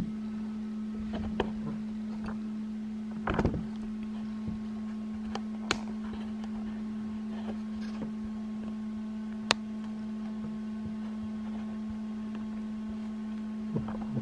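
A steady electric hum from a small motor, with a few scattered sharp clicks and handling knocks on top, the sharpest a little before and a little after the middle.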